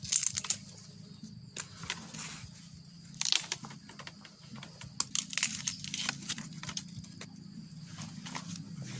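Irregular crackling and snapping of dry leaves, twigs and bamboo litter being trodden through and broken, with a steady low hum underneath.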